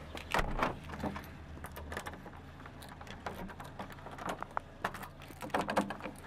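A bunch of keys jangling and clicking against a door's lock and lever handle as a key is worked in the lock, in three short rattling clusters with the last near the end.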